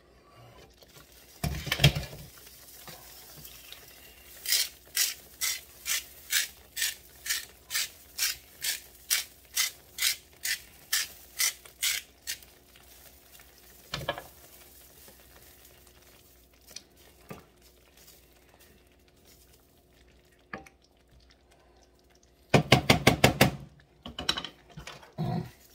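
A hand-twisted salt mill grinding salt into a pan of tomato sauce, with even grinding strokes at about two and a half a second for some eight seconds. A quicker, louder run of strokes follows near the end, and there is a single knock about two seconds in.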